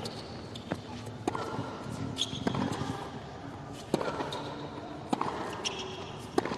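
Tennis rally: a ball struck back and forth with rackets, about half a dozen sharp hits roughly a second or so apart, with a couple of short high squeaks over faint crowd hiss.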